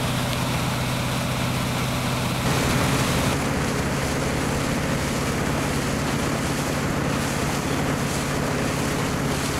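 A motorboat's engine hums steadily under the rush of water and wind noise on the microphone.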